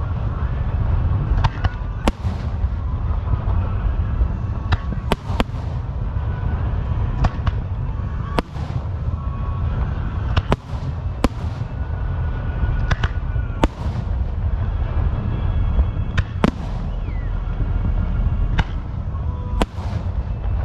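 A fireworks display: sharp bangs from shells bursting at irregular intervals, roughly one every second or two, over a steady low rumble.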